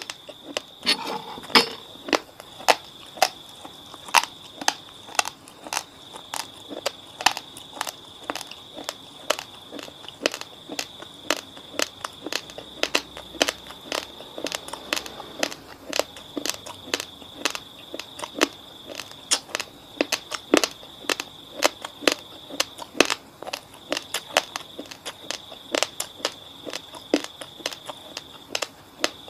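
Raw basmati rice crunching as it is chewed: sharp, irregular cracks of the grains breaking, two or three a second.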